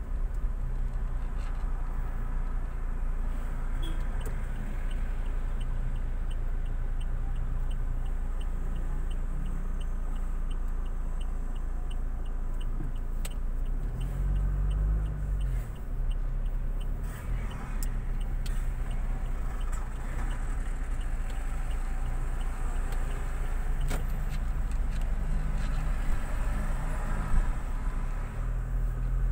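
Inside a moving car: steady engine and road rumble, with a turn-signal indicator clicking evenly about three times a second from about four seconds in until about sixteen seconds. The engine note rises and falls briefly as the car takes the turn, and again near the end.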